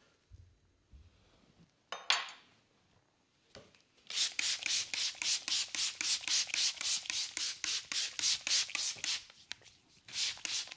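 Hands rubbing quickly back and forth over a wet foot and lower leg in a massage, a fast even swishing of about five strokes a second that starts about four seconds in, pauses briefly and picks up again near the end. A single short hiss sounds about two seconds in.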